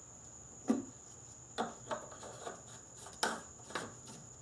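Plastic knocks and clicks from an oil funnel being lifted out of the engine's oil filler neck and the plastic oil filler cap being handled and fitted back on, about half a dozen separate light knocks.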